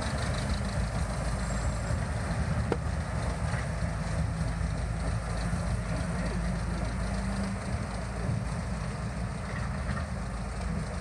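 Small diesel shunting locomotive's engine running steadily as the locomotive moves slowly along the track, a low rumble with a hum that swells and fades a little.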